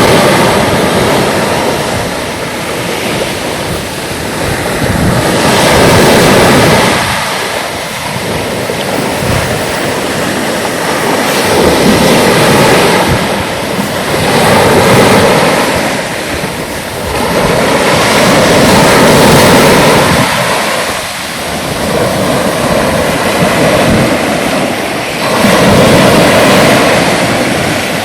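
Sea waves breaking on the shore: a loud, steady rush of surf that swells and falls back every several seconds.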